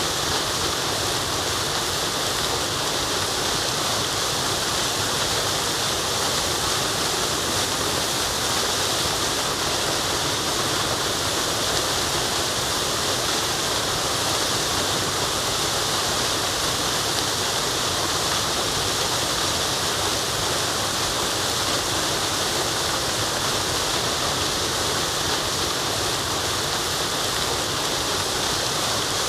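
Waterfall rushing: a steady, unbroken hiss of falling water, strongest in the high range, with no changes or separate events.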